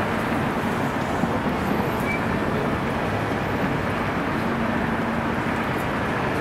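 Brooklyn street ambience: a steady wash of traffic noise, with a low engine hum showing briefly past the middle.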